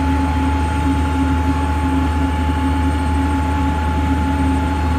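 Construction-site machinery running steadily: a loud, unbroken low hum with a constant higher whine over it.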